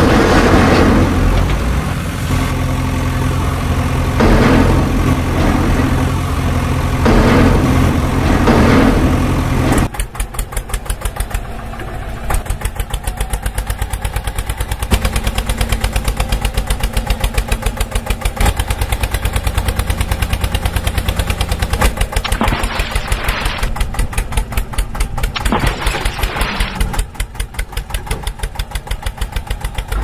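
A tractor engine running, laid over the toy footage as a sound effect: a steady low drone that changes about ten seconds in to a fast, even putter like a diesel tractor idling.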